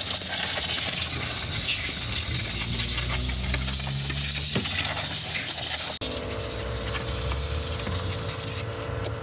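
Steady hiss of a cleaning spray during car detailing. About six seconds in the sound cuts abruptly to a steady machine hum under the hiss.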